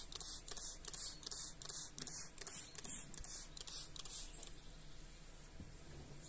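Trigger spray bottle squirting de-icer onto a frosted car windshield in quick repeated pumps, each a short hiss, about two or three a second. The pumping stops about four and a half seconds in.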